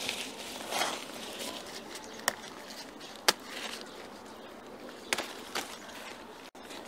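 Grapevine leaves being picked by hand: a rustle of foliage near the start, then three sharp snaps of leaf stems a second or two apart, over quiet garden air.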